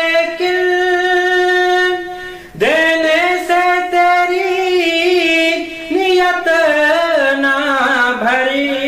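A man's voice reciting a naat, holding long drawn-out notes. One long held phrase breaks off about two and a half seconds in, and a new phrase starts with a rising swoop, then turns and wavers.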